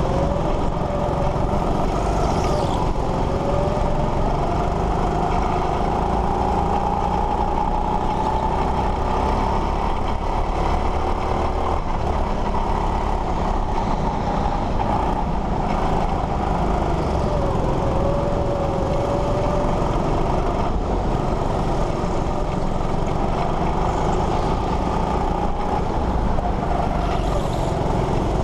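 Go-kart driving laps at speed, heard from on board: a steady rumble with a whine that rises and falls in pitch as the kart speeds up and slows through the corners.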